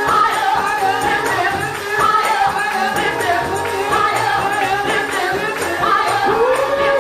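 Gospel praise music: voices singing over a band, with a tambourine keeping a steady beat.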